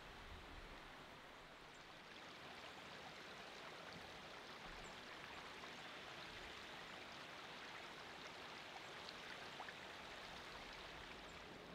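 Faint, steady rushing of a shallow creek flowing over rocks.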